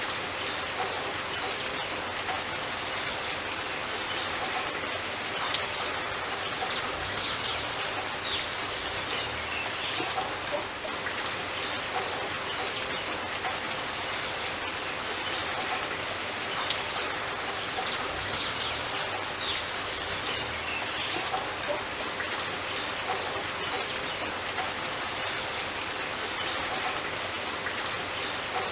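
Steady rain falling, with now and then a single drop ticking sharply against a surface.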